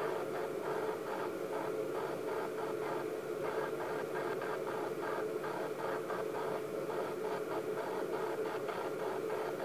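Video monitor's speaker giving a steady hiss with a hum, carrying a fine, rapid flutter throughout.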